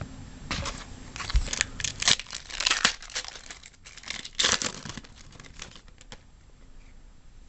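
Crinkling and tearing of a trading-card pack's foil wrapper: a series of short rustles that die away about six seconds in.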